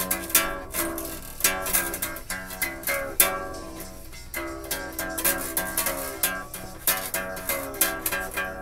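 Ukulele played by hand: a continuous run of plucked notes and chords, with no singing.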